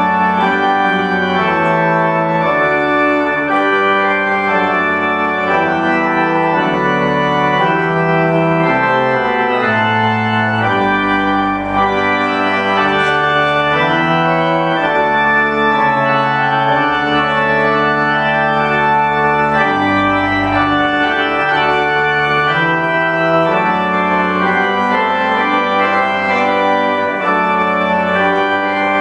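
Church organ playing a slow piece in held chords over a moving bass line, as offertory music during the service.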